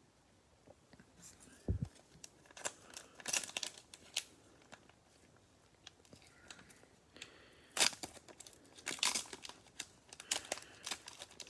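Cellophane wrapper of a trading-card cello pack being torn and crinkled, in two bouts of crackling. There is a soft low thump about two seconds in.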